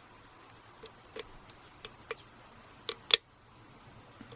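Lock pick working a pin in a 50mm brass pin-tumbler padlock: faint scattered ticks of metal on metal, then two sharp clicks close together about three seconds in.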